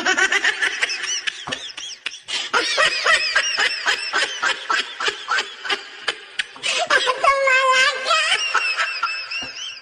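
High-pitched laughter in a fast run of short bursts, several a second, with one longer drawn-out laugh about seven seconds in.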